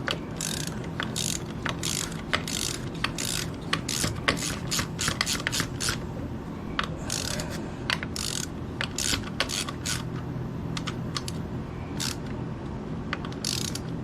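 Hand ratchet clicking in short, irregular runs as bolts are worked, over the steady hum of a shop fan.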